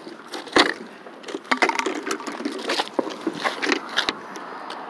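Rustling and crunching footsteps through tall grass, with irregular knocks from the handheld phone; the sharpest knock comes about half a second in.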